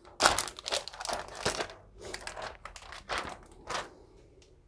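Handling noise from graded comic book slabs being swapped: plastic crinkling and rustling in irregular bursts, with a few light clicks. It is busiest about a quarter second in and thins out towards the end.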